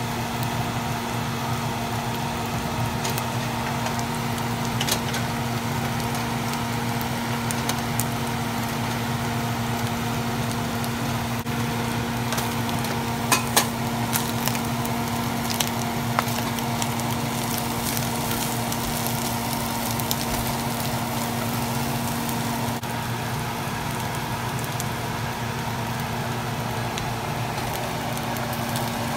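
Salmon pieces sizzling steadily as they fry in a non-stick pan, with a few sharp clicks near the middle as the fish is stirred. A steady hum runs underneath.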